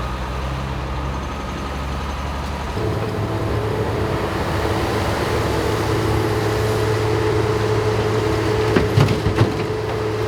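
Heavy road-construction equipment engine running steadily. About three seconds in, its note rises and holds, and a few sharp knocks sound near the end.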